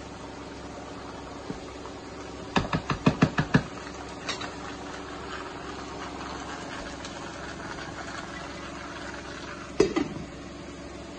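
A quick run of about eight sharp taps as the stirring spoon is knocked against the nonstick pan, with a faint sizzle from the pan. Near the end a glass pan lid is set down on the pan with one loud clack and a brief ring.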